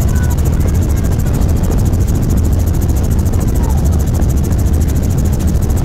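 Helicopter in flight heard from inside the cabin: a loud, steady low drone of engine and rotor with a rapid, even pulsing.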